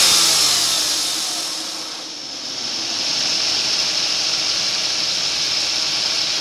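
2006 Suzuki Grand Vitara engine running with its accessory belt and pulleys turning, with a steady high hiss over it. The sound fades over the first two seconds, comes back about two and a half seconds in, and then holds steady.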